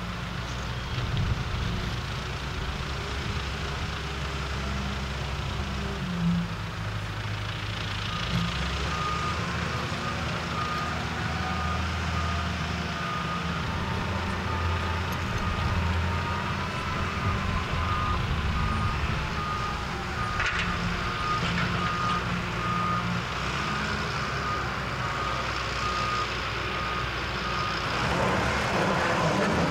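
A heavy construction vehicle's engine running, with its reversing alarm beeping at an even pace from about a third of the way in until near the end.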